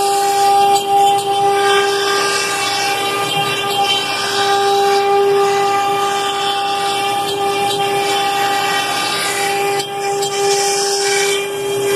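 Twin-spindle Works B CNC router cutting plywood: the spindle whines at a steady pitch over a continuous hiss from the bit cutting the wood.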